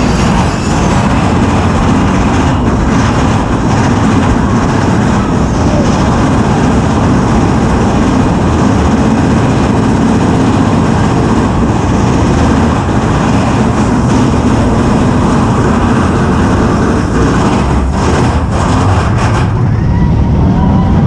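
Mine-train roller coaster running at speed along its track: a loud, steady rumble of wheels on rail with rushing noise over it. The sound thins out a little near the end as the train leaves the tunnel.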